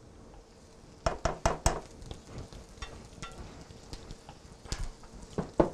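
A spatula scraping and knocking against a mixing bowl as cake batter is scraped out into a pan: a quick run of scrapes about a second in, scattered lighter ones after, and two more knocks near the end.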